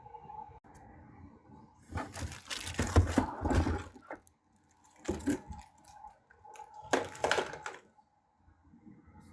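Cardboard and plastic packaging being handled and pulled open in three bursts of crackling and crinkling, the first and longest with a few dull thuds.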